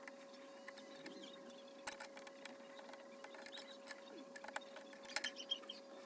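Scattered light clicks and taps, a few of them louder about five seconds in, over a faint steady tone.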